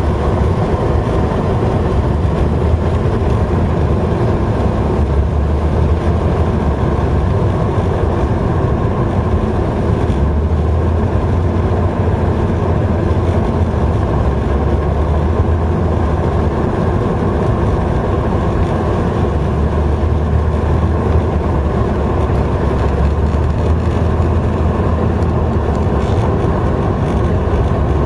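Car driving along a sealed road: a steady low rumble of road and engine noise, heard from inside the car.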